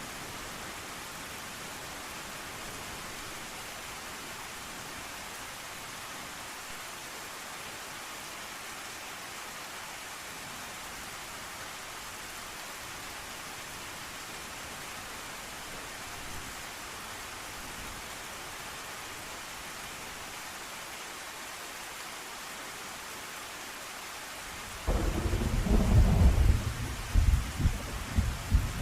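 Steady rain hissing, then about 25 seconds in a sudden loud thunderclap that rumbles and crackles to the end.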